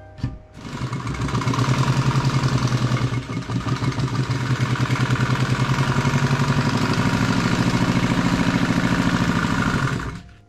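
Industrial sewing machine running at speed, stitching through heavy fabric with a fast, even needle rhythm. It starts about half a second in, slows and dips briefly about three seconds in, then runs steadily and stops near the end.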